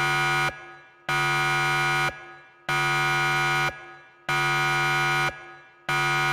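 Harsh electronic buzzer sound effect blaring in repeated one-second blasts, about one every one and a half seconds, each stopping abruptly with a short fading tail.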